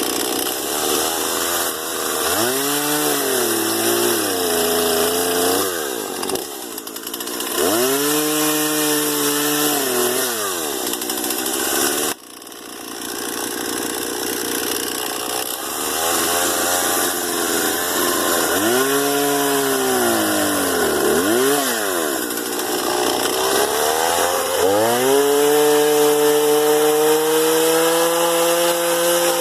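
Small gas chainsaw cutting through tree limbs, its engine pitch rising and sagging again and again as it revs and slows in the wood, then holding a steadier high pitch near the end.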